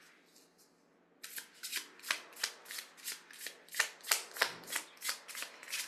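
A deck of reading cards being shuffled by hand: after about a second of quiet, a quick run of papery card slaps, roughly three or four a second.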